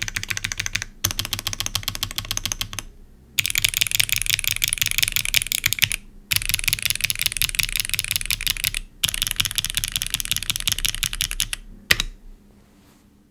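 Fast typing on a Neo75 CU mechanical keyboard with modded NK Cream Clicky switches, aluminium plate and GMK keycaps: dense runs of crisp clicky keystrokes in about five bursts with short pauses between them. The typing ends with a single louder keystroke near the end.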